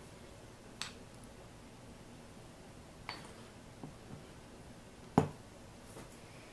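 Glass mason jar being handled and set down on a countertop: a handful of light clinks and knocks, the loudest a single knock about five seconds in.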